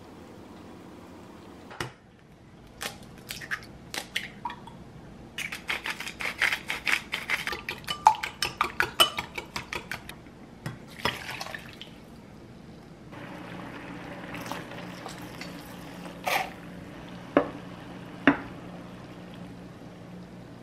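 Eggs beaten briskly in a glass measuring cup, the utensil clicking against the glass about five or six times a second. Partway through, the clicking stops and water at a full boil in a frying pan on an induction cooktop gives a steady bubbling hiss with a low hum, broken by a few sharp clinks.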